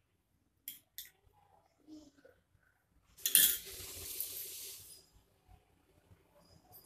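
Two light clicks, then a loud hiss that lasts about two seconds and is strongest as it starts.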